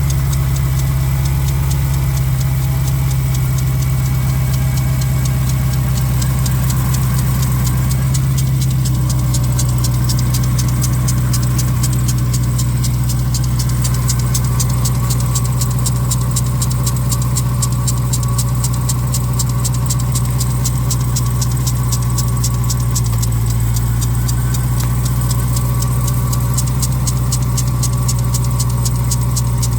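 2021 Dodge Durango SRT Hellcat's supercharged 6.2-litre V8 idling cold, with a fast, even ticking from the lower serpentine belt tensioner over the engine sound, which gets plainer about a third of the way in. The tensioner's bearings are bad; replacing the accessory belt tensioner cured the noise.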